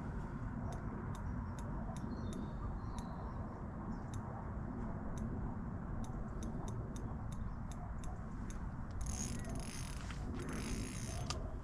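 Fishing reel ratchet clicking while a hooked carp is played, about two clicks a second, with quicker runs of clicking near the end, over a steady low rumble.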